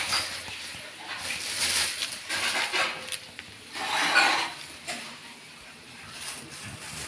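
Thin clear plastic bag crinkling and rustling in uneven bursts as a kitten wriggles inside it, loudest about four seconds in.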